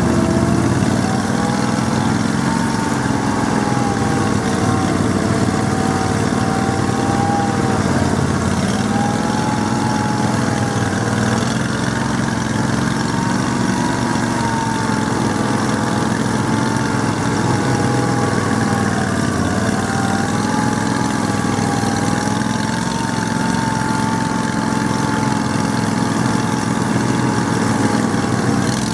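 Argo amphibious all-terrain vehicle engine running continuously, its pitch dipping and rising every few seconds with the throttle.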